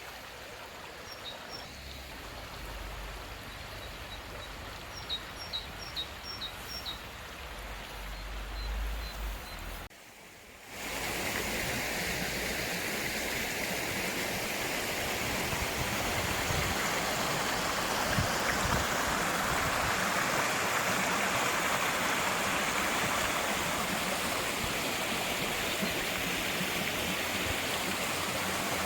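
Flowing stream water, a steady even rush that starts abruptly about ten seconds in. Before it there is quieter outdoor ambience with a low rumble and a few small bird chirps in short groups.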